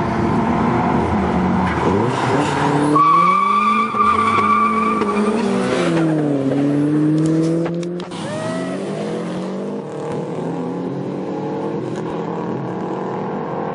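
Car engine accelerating hard down a drag strip. Its pitch climbs, drops at a gear change about six seconds in, and climbs again. A high tyre squeal comes in about three seconds in and lasts a couple of seconds.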